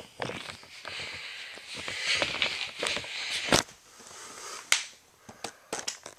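Handling noise from plastic toy trains and the camera being moved by hand: scuffing and rustling with a string of sharp clicks, several of them close together near the end.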